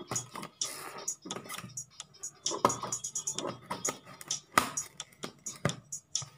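Hands and scissors working at a styrofoam packing box, making irregular scrapes, rubs and clicks, with a few sharper clicks scattered through.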